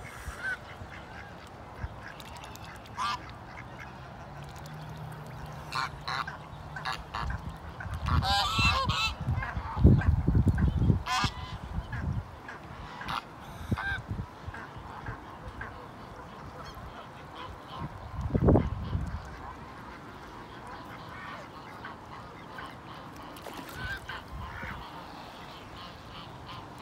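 Domestic swan geese and greylag geese honking on and off in short calls, with a burst of several calls together about eight seconds in. Low rumbles come through around ten and eighteen seconds in.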